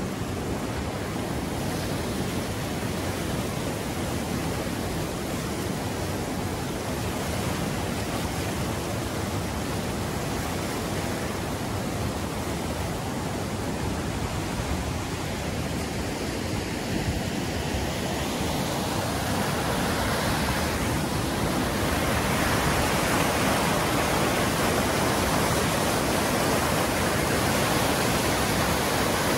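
Fast-flowing river rushing over rocks and rapids, a steady whitewater noise that grows louder about two-thirds of the way through.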